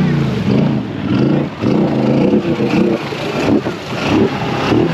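ATV engine running under changing throttle, its pitch rising and falling as the rider speeds up and slows down, with a few short knocks near the end.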